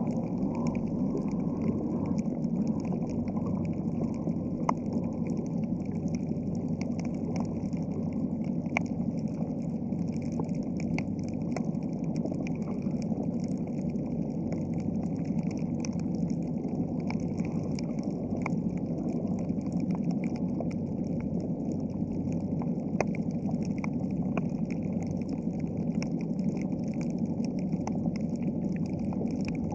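Steady underwater ambience: a low rush of water with scattered faint clicks and crackles.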